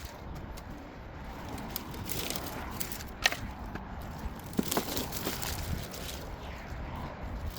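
Dry brush and branches crackling and rustling as they are handled, with a sharp snap about three seconds in and a few more cracks around the middle.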